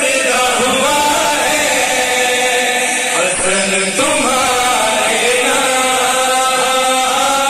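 Several men chanting a devotional qasida together into microphones, in long, held notes that rise and fall in pitch.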